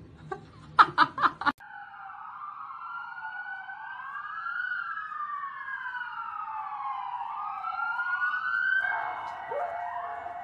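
A few short, loud cries in the first second and a half, then several emergency sirens wailing at once, their rising and falling sweeps crossing over each other. Near the end a steadier, higher tone joins them.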